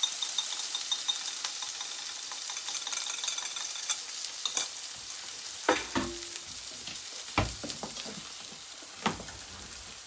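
Egg and chopped vegetables sizzling in a frying pan while a utensil stirs them, with a few sharp knocks of the utensil against the pan in the second half.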